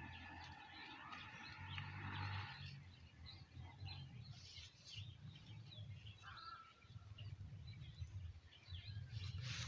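Faint outdoor ambience of birds chirping in many short calls, with a low rumble that comes and goes underneath.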